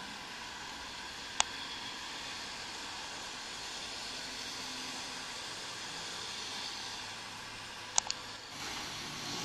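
Steady hiss of wind and road noise from riding a bicycle along a bike lane beside highway traffic, with a sharp click about a second in and two quick clicks near the end.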